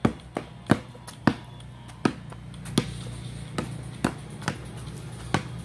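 Basketball bouncing on a concrete slab as it is dribbled: about ten sharp bounces at an uneven pace, over a steady low hum.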